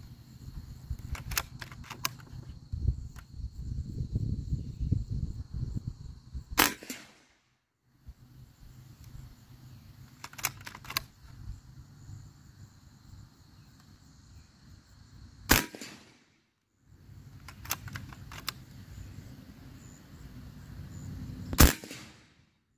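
Three sharp shots from a scoped PCP air rifle fitted with a muzzle brake: the second comes about nine seconds after the first, the third about six seconds later and loudest. Each shot is preceded by a few lighter clicks, and a low rumble runs between the shots.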